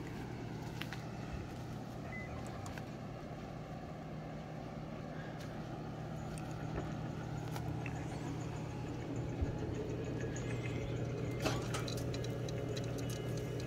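Steady low mechanical hum over a soft, even wash of noise, with a few faint clicks and taps; it grows slightly louder in the second half.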